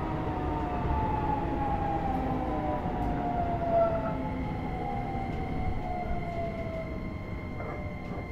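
Keisei 3000 series electric train running, its inverter and traction motors whining in several tones that fall slowly in pitch as the train slows, over a low rumble of wheels on rail. A steady high tone joins about halfway.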